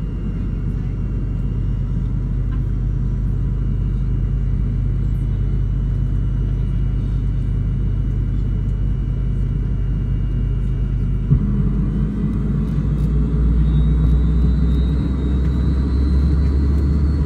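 Steady low cabin rumble and hum of a McDonnell Douglas MD-88 during pushback from the gate. About 11 seconds in, a click comes and the hum turns deeper and louder. A faint whine then rises slowly through the last few seconds, typical of one of the rear-mounted Pratt & Whitney JT8D engines beginning to spool up on start.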